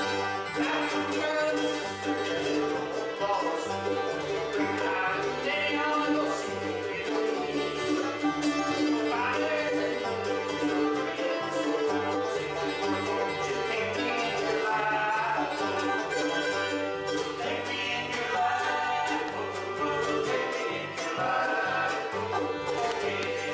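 Bluegrass band playing live: fiddle, banjo, mandolin, upright bass and acoustic guitar, the bass stepping steadily underneath.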